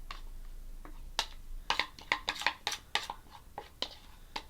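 Spoon clicking and scraping against a bowl as thick oat batter is spooned out, a string of irregular light taps starting about a second in.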